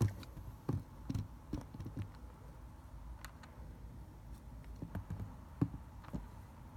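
Computer keyboard keys clicked and tapped at an irregular pace, a few short separate clicks at a time.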